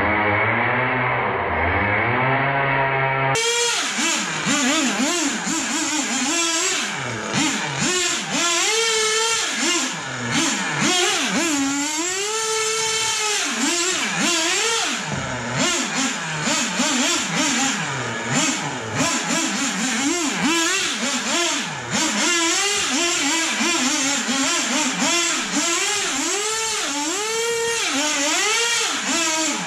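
Losi 8ight RC buggy's small nitro engine revving up and down again and again as the car is throttled and slid around on smooth concrete.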